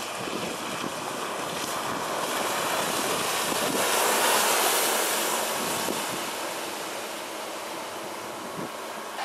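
Electric speedboat planing past at speed: a rushing hiss of spray and churned water that swells as it passes closest, about four seconds in, then fades as it pulls away, with no engine note.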